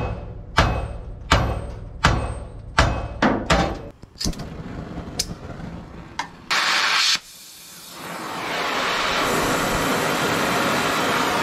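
A hammer beating on a stuck steel pivot bolt in a dump truck's hoist cylinder mount, about seven hard metal blows in the first four seconds. An oxy-acetylene cutting torch follows: a short loud hiss of gas about six and a half seconds in, then the torch flame's steady hiss from about eight seconds on.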